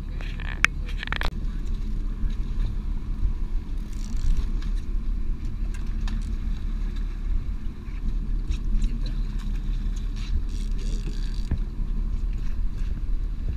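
Fishing boat's engine running with a steady low rumble, with a few light clicks and knocks over it.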